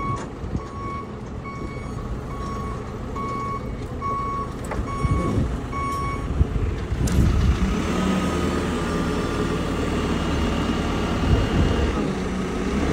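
JCB telehandler's motion alarm beeping about twice a second over its diesel engine running; the beeping stops about halfway through and the engine runs on, with a steady whine joining it later.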